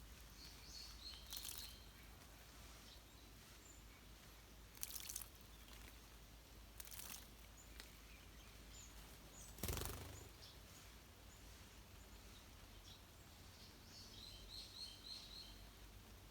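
Faint high chirps of small wild birds, in quick clusters about a second in and again near the end. A few brief noisy bursts also come through, the loudest about ten seconds in.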